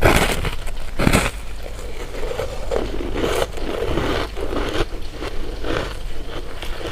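Close-miked eating of candy: two loud crunching bites, the second about a second in, then irregular chewing and crunching.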